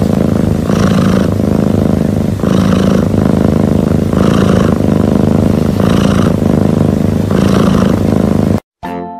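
A sleeping domestic cat's loud, rough, rhythmic breathing rumble, swelling five times about one and a half seconds apart, then cutting off suddenly near the end.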